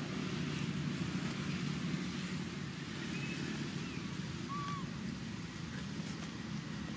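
Steady low outdoor rumble with two faint, short, high calls, one about three seconds in and another about four and a half seconds in.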